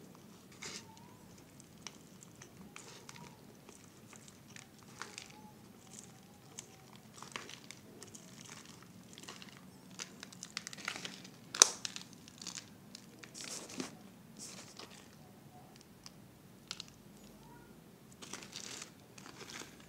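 Empty plastic bottle crinkling and crackling as it is handled, in irregular bursts of clicks and rustles, with one sharp crack about two-thirds of the way through.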